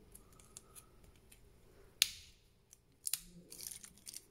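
Small plastic and metal clicks from a car seat-adjustment switch being prised apart, with one sharp snap about two seconds in and a quick run of clicks a second later.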